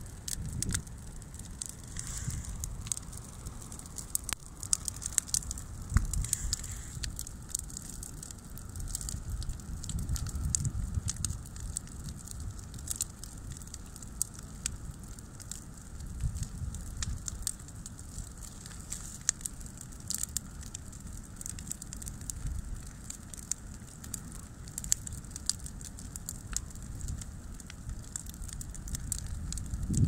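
Bonfire of dry branches and brushwood burning, crackling and popping constantly, with a low uneven rumble underneath.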